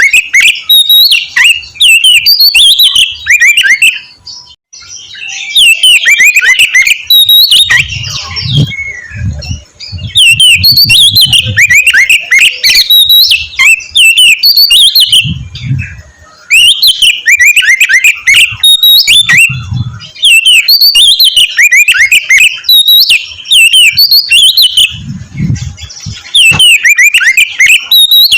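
Oriental magpie-robin (kacer) singing loudly in phrases of rapid, quickly repeated falling whistled notes, each phrase a second or two long with short breaks between them. A few low thuds sound underneath.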